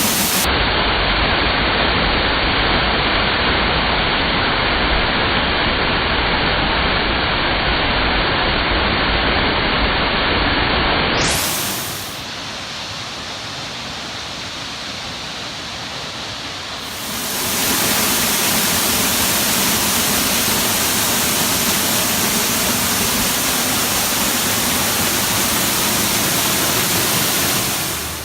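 Waterfall pouring, a loud steady rush of falling water. It drops to a softer rush for about five seconds in the middle, then comes back up.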